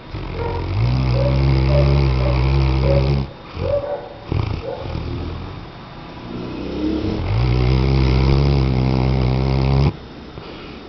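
Weimaraner dog snoring: two long snores of about three seconds each, with a few short breaths between them.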